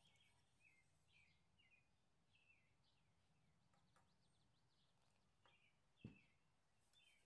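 Near silence with faint, short bird chirps repeating every half second or so, and a single soft low thump about six seconds in.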